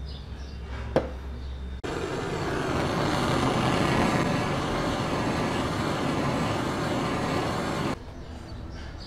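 A single sharp click about a second in, then a heat gun blowing hot air over a thin metal panel to soften it for bending: a steady rushing hiss that starts abruptly about two seconds in and cuts off abruptly near the end.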